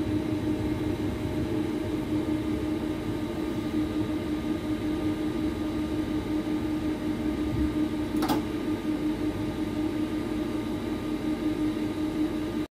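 Steady hum and low rumble inside a Class 390 Pendolino carriage as the train rolls slowly along the platform, with a single sharp click about eight seconds in.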